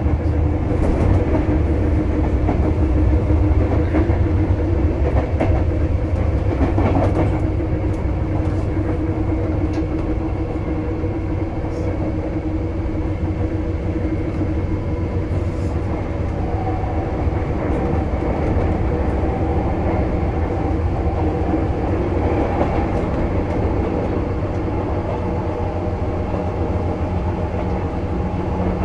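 Running sound of a Sotetsu 8000 series electric train heard from on board: a steady low rumble of wheels on the track, with several steady motor tones above it. A higher tone joins about halfway through.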